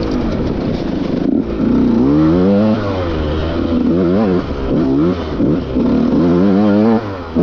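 Dirt bike engine heard close from the rider's on-board camera, revving up and down again and again as the throttle is worked, with a brief drop in power a little over a second in and again near the end.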